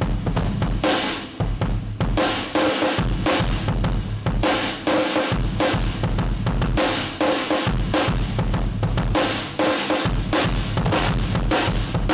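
Drum kit played in a steady groove, with bass drum, cymbals and a Mapex Black Panther Blackbird steel snare, recorded raw without processing.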